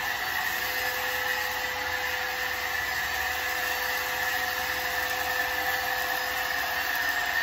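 Bissell ReadyClean 10.8V cordless stick vacuum running steadily with an even whine as it cleans a shaggy rug.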